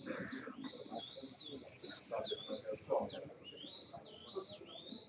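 Electric motor of a 1:32 scale Eurosport slot car lapping the track: a high whine that rises and falls again and again as the car accelerates and brakes.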